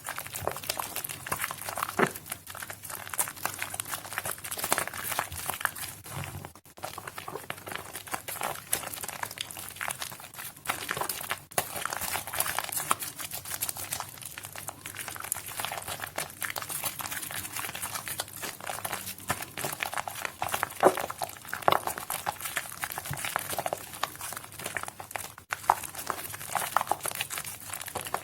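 Soaked bar soap being squished and crushed: a dense, continuous crackling with a few short breaks.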